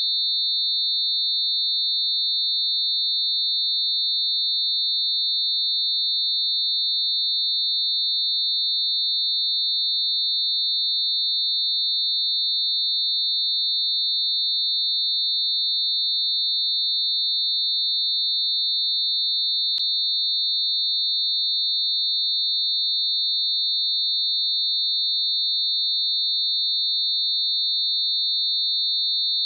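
Synthesised high-pitched tone: a few pure sine tones lying close together, mixed into one steady, unchanging whine. A faint click comes about twenty seconds in.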